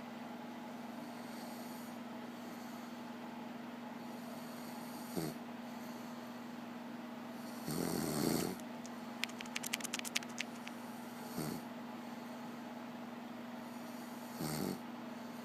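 A person snoring, with single snores every few seconds over a steady low hum; the longest and loudest snore comes about halfway through. A quick run of sharp clicks follows it.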